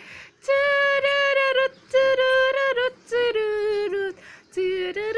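A high voice singing a wordless 'na na na' tune in about four short phrases of held notes with brief breaks between them, the pitch dropping for the third phrase.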